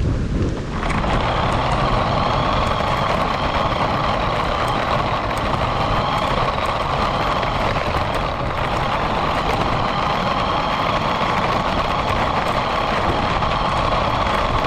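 Radio-controlled car driving, heard from on board: a steady running noise of its drivetrain and tyres with a low rumble, kicking in about a second in as it sets off.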